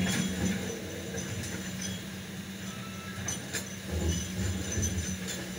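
Kobelco SK200 hydraulic excavator's diesel engine running steadily while it digs, its low rumble swelling about four seconds in. Several sharp clinks and knocks of the steel bucket against river rock and gravel.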